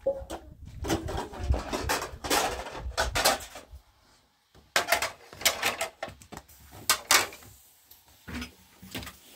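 Irregular knocks, clicks and clatter of things being handled and set down, over a low rumble, with a short pause about four seconds in.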